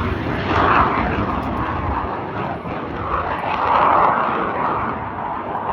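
Alpha Jet's twin turbofan engines heard as a steady noise during its takeoff run. The noise swells briefly about a second in and again near four seconds in.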